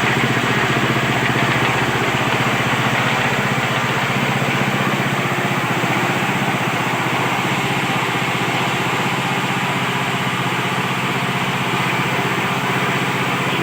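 Multi-function grinding machine (flour mill, sambal grinder and coconut grater on one drive) running steadily.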